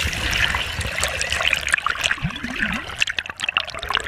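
Seawater splashing and gurgling around a camera held at the surface: a dense crackle of many small splashes and trickles.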